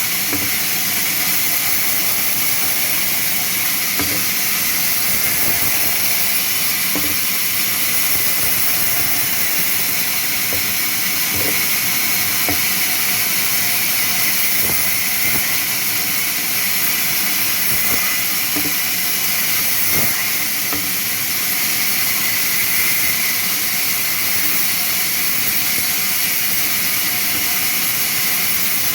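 Sawmill machine running through a cut in timber: a loud, steady high hiss, with a few faint knocks now and then.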